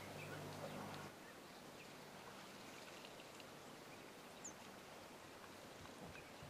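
Faint bush ambience. A low steady hum cuts off about a second in, leaving a quiet hiss with a few faint, short bird chirps.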